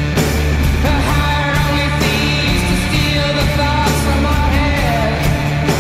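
Rock music with singing and a heavy bass line.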